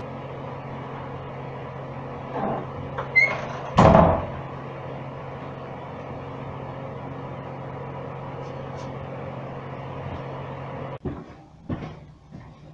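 A door creaking and then banging shut about four seconds in, over a steady low hum. The hum cuts off suddenly near the end, followed by a few light knocks.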